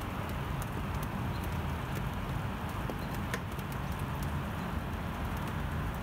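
Rain falling steadily as an even hiss, with scattered drops tapping sharply and irregularly close to the microphone, over a low rumble.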